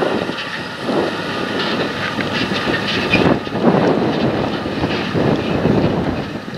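A tractor pulls a loaded tandem-axle grain trailer past and away, its engine and running gear heard through gusty wind buffeting on the microphone.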